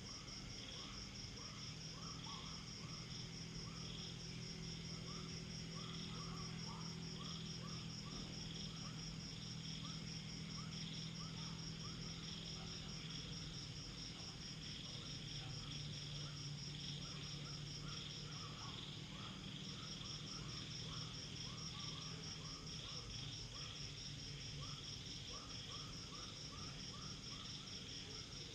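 Night insects calling in a rural chorus: a steady, fast-pulsing high trill with short chirps repeating lower down. A low steady hum runs underneath and shifts in pitch about halfway through.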